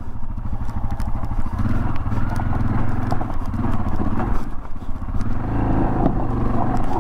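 Yamaha XT 600 E's single-cylinder four-stroke engine running under throttle up a steep rocky climb, with rocks clattering and knocking under the tyres.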